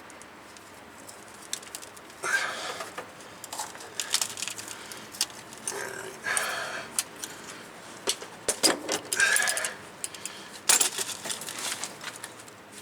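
Metal hand tools clinking and rattling in short irregular bursts with sharp clicks, as a wrench works a brake line fitting snug.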